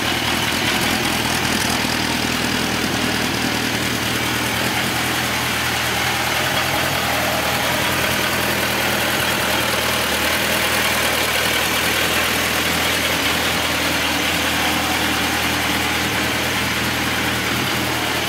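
Suzuki GSX1250F's 1255 cc inline-four engine idling steadily through a Scorpion aftermarket silencer.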